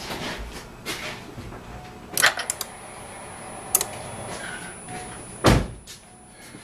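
Sharp clicks and knocks from hands working in the car, the loudest a thump about five and a half seconds in. A faint, steady high-pitched whine starts just after the first clicks.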